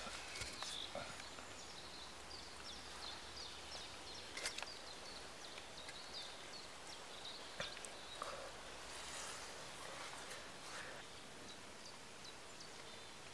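Faint outdoor ambience with small birds chirping in the background, and a few light knocks and scrapes as cast concrete pipe sections are set in place and stacked.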